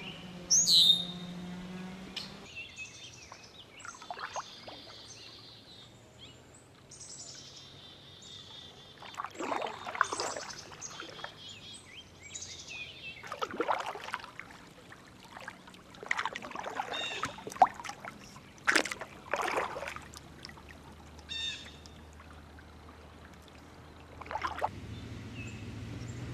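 Kayak paddle dipping and splashing in river water every few seconds, with songbirds chirping.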